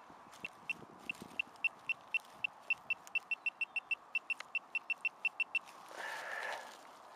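Handheld metal-detecting pinpointer probe beeping in short, identical high pulses that quicken from about three to about six a second as its tip nears a buried metal target in the hole, then stop about two-thirds of the way through.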